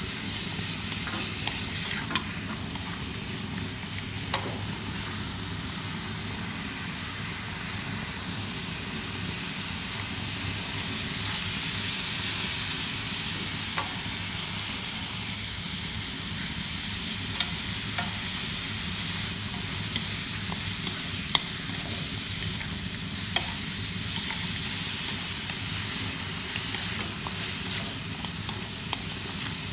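Chopped wild bird meat sizzling steadily as it is stir-fried in a metal wok, with a few sharp clicks as it is stirred against the pan.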